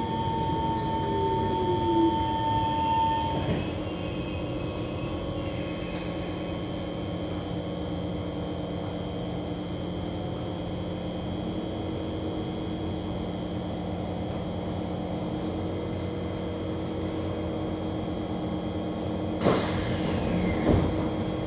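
Kawasaki C151 metro train's traction motors whine down in pitch as it brakes to a stop, and the whine ends about three and a half seconds in. The standing carriage then gives a steady hum of its auxiliary equipment. Near the end the doors slide open with a sudden clatter.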